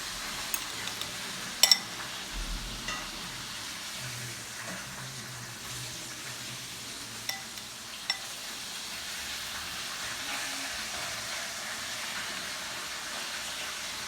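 Food sizzling steadily in hot oil in a pan, with a few sharp clicks of utensils or cookware, the loudest about two seconds in.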